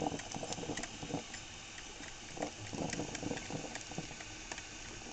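Black & Decker drip coffee maker brewing: water bubbling and gurgling through its heater in irregular pops and blips over a faint hiss, a sign that it is heating and pumping water as it should.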